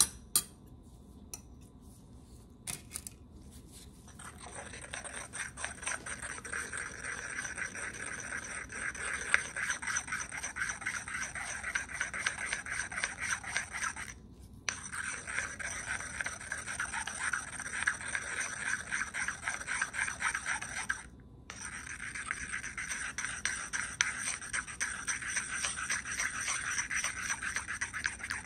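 Pestle scraping rapidly round a mortar, triturating gum acacia powder into Eucerin base cream until the mixture becomes a single smooth substance. The fast scraping starts about four seconds in and stops briefly twice.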